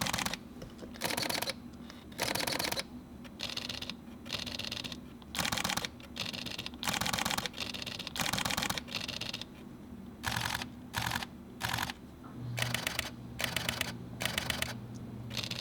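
Mechanical focal-plane shutters of Fujifilm X-series mirrorless cameras firing in continuous-high mode at 1/1000 s: a string of short bursts of rapid shutter clicks, each under a second long, about one burst a second.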